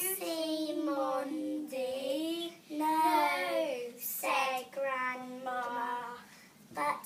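A young girl's voice singing in short phrases, with held notes and smooth rises and falls in pitch, broken by brief pauses.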